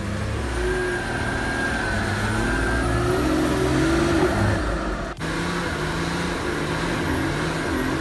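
Nissan Patrol GR 4x4's engine revving up and down as it pushes through deep snow. The sound breaks off sharply and changes about five seconds in.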